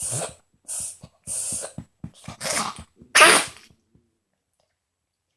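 Small Miniature Pinscher–Chihuahua dog coughing and dry heaving: a run of about six hacks in quick succession, the last and loudest about three seconds in, then it stops.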